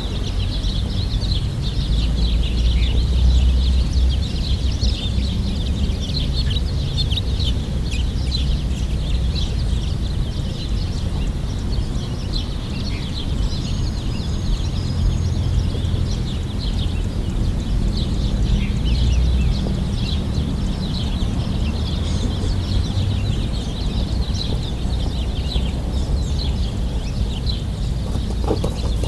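Many small birds chirping and twittering without a break, over a steady low rumble.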